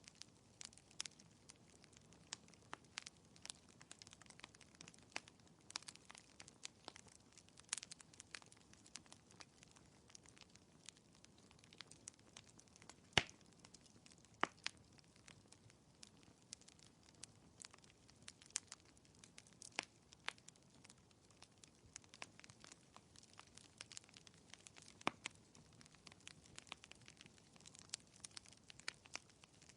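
Wood fire crackling softly: irregular small pops and snaps over a faint low hiss, with one sharper pop about halfway through.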